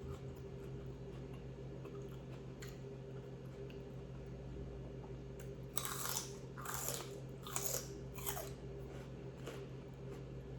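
A person biting and chewing crunchy food close to the microphone: four loud, sharp crunches in quick succession just past the middle, over a steady low hum.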